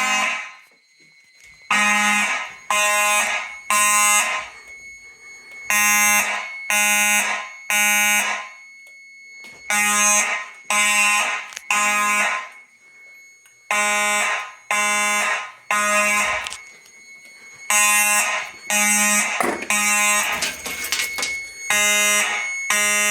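Simplex mechanical fire alarm horns buzzing in the code 3 temporal pattern: three short blasts about a second apart, then a pause, repeated over and over. The horns are sounding because a pull station has been activated.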